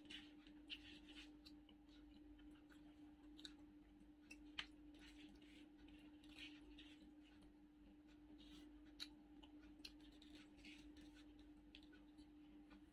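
Faint, scattered clicks and crackles of people eating fried popcorn chicken and handling paper wrappers, with one sharper click about four and a half seconds in, over a steady low hum.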